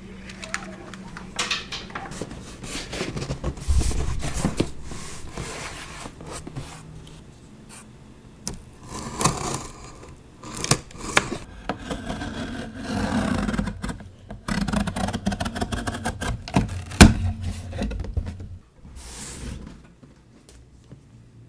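Packaging being handled during an unboxing: irregular scraping and rubbing with scattered knocks, one sharp knock louder than the rest late on.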